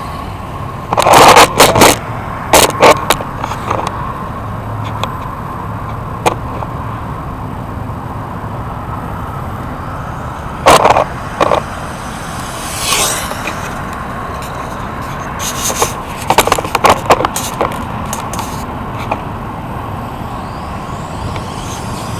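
Duratrax Vendetta RC touring car with a Novak 10.5 brushless electric motor making several high-speed passes. Its motor whine rises and falls as it goes by, and there are several clusters of loud, short noisy bursts.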